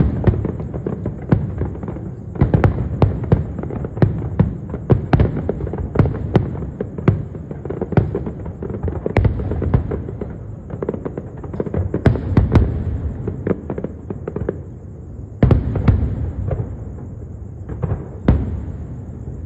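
Aerial fireworks display going off continuously: many sharp bangs, often several a second, over a steady low rumble of overlapping explosions.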